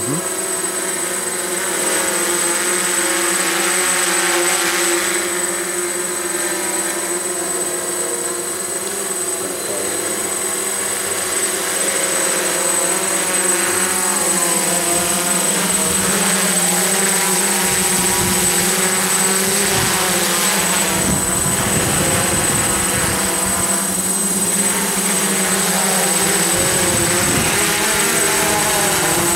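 DJI F550 hexacopter's six motors and propellers buzzing steadily in a hover, the pitch wavering slightly as the motors adjust. A thin, steady high whine runs above the buzz.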